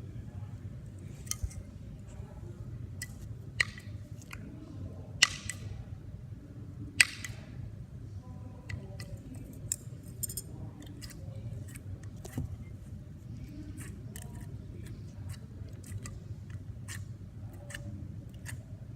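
Slime being squeezed and poked by hand, giving irregular sharp clicks and pops from air pockets bursting. The loudest come at about five and seven seconds in, over a steady low hum.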